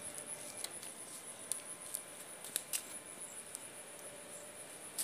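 Several sharp clicks and small knocks from handling electrical switches, a plug and a socket, the loudest a pair a little past halfway and one right at the end, over a steady high-pitched chirring of a cricket.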